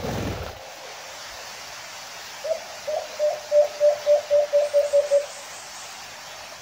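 White-eared brown dove (alimokon) calling: a series of about a dozen short, low coos on one pitch, quickening toward the end. This is the advertising call used to lure wild birds to a trap.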